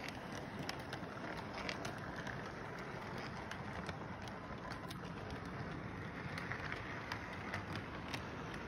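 Electric model train running past: a steady rolling rumble from the motor and wheels on the track, with many sharp, irregular clicks.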